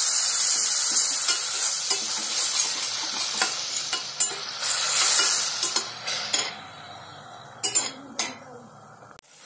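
Water just poured onto hot oil and browned onions sizzling in a pressure cooker, with a steel spatula stirring and scraping the pan bottom. The sizzle is loud at first and dies down after about six seconds as the water takes up the heat, with a few last scrapes of the spatula near the end.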